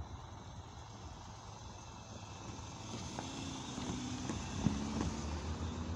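Low engine rumble of a road vehicle, growing louder about halfway through as it comes closer, with a few faint sharp pops.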